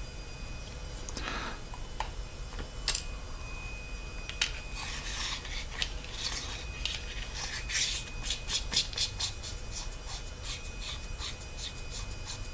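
Metal flashlight parts being screwed back together: a threaded head and body rubbing and scraping, with scattered clicks. A run of quick light ticks, about four or five a second, fills the second half.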